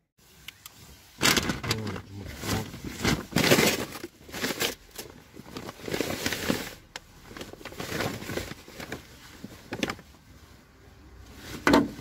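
Rustling of clothing, nylon jackets and plastic bags being rummaged through by hand, in irregular bursts, with a sharper, louder rustle near the end.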